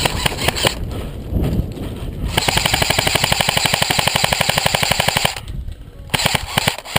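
Airsoft electric gun firing: a few single shots, then a steady full-auto burst lasting about three seconds starting about two seconds in, then a shorter burst near the end.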